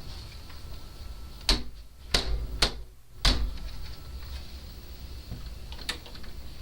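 Door lock and latch being worked: four sharp clicks over about two seconds, then one fainter click near the end.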